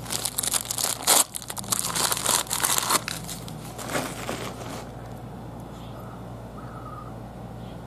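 Packing wrap crinkling and rustling as a small ceramic pot is unwrapped by hand, heaviest for the first three seconds and dying away by about five seconds in.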